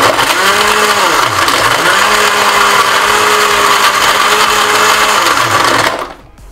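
Premium PB323 countertop blender running, crushing ice cubes in a little water. The motor's hum sags in pitch twice in the first two seconds, holds steady, dips again, and the motor cuts off about six seconds in.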